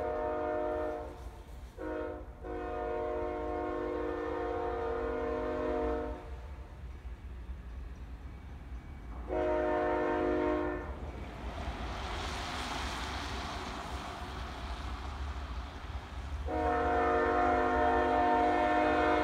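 Freight locomotive's multi-note air horn sounding: a long blast broken by two brief gaps, a short blast about nine seconds in, and another long blast near the end. A steady low rumble of the train runs underneath, with a rushing noise between the second and third blasts.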